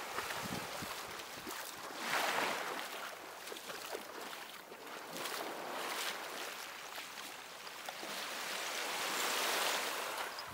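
Surf washing onto a beach, its hiss swelling and fading every few seconds.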